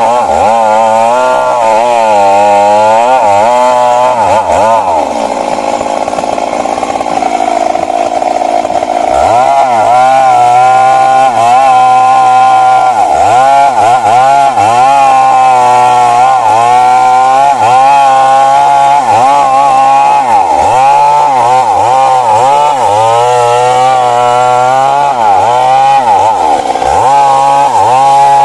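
Stihl MS 382 two-stroke chainsaw cutting into a big tree trunk at high revs, its engine pitch dipping and recovering again and again as the chain loads up in the wood. For a few seconds about a fifth of the way in, the pitch holds steadier and lower before the dips resume.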